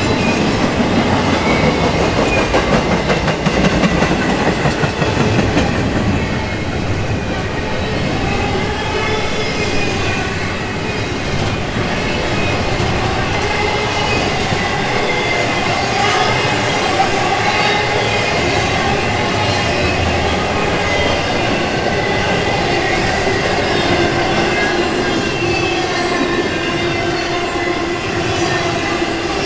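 Freight cars of an intermodal container train rolling past close by: a steady rumble and clatter of steel wheels on rail. Wavering, wailing squeal tones from the wheels rise and fall over it, most clearly in the second half.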